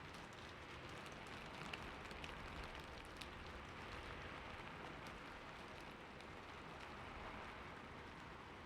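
Steady rain falling, with scattered individual drops ticking through it.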